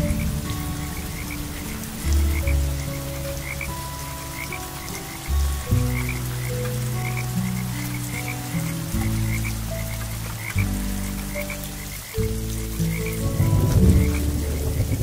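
Frogs croaking in a steady run of short calls, about two a second, over an even hiss of rain.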